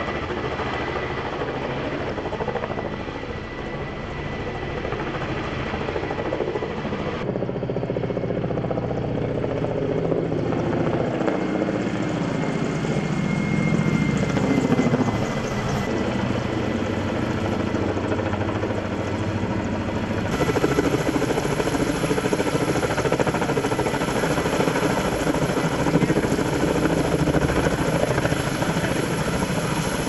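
Kamov Ka-32 coaxial-rotor firefighting helicopter running steadily while it hovers with a water bucket slung on a long line, with continuous rotor and turbine noise. The sound shifts abruptly a few times, about a quarter, half and two-thirds of the way in.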